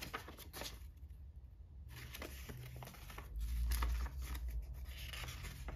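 Old paper greeting cards being opened and handled: faint rustling and light taps of card stock, with a soft handling bump about three seconds in.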